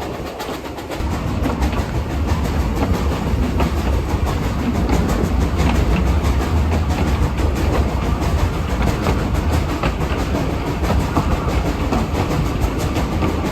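Narrow-gauge train running along its line, with a steady low rumble and a busy clatter of wheels on the rails, growing louder about a second in.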